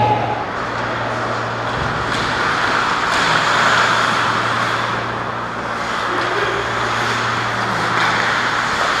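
Ice hockey play around the net: skate blades scraping the ice with a few sharp stick or puck clacks, over a steady low hum. The scraping swells about three to four seconds in as a skater passes close by.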